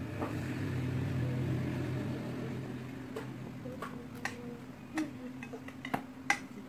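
A metal spoon clicking against a stainless steel bowl several times in the second half, sharp separate clicks over a steady low hum.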